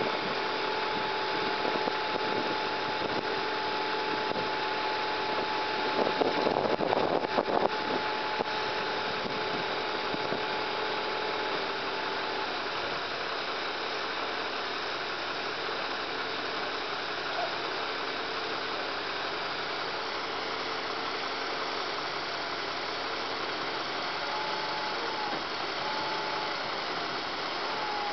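Bucket lift truck's engine running steadily, with a steady whine from the boom's hydraulics that stops about twelve seconds in and comes back faintly near the end. A burst of clattering comes about six seconds in and lasts a couple of seconds.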